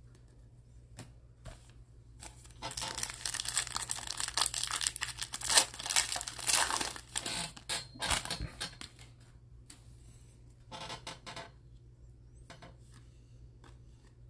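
A foil baseball card pack being torn open and crinkled, a run of dense crackling for several seconds. Near the end comes a short patter of the cards being handled.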